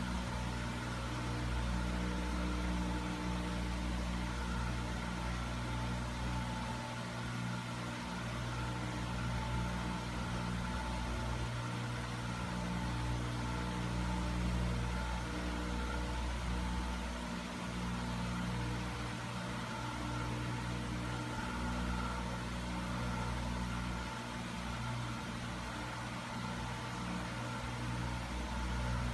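A steady low mechanical drone with several constant tones over it, dipping briefly now and then but otherwise unchanging; no thunder is heard.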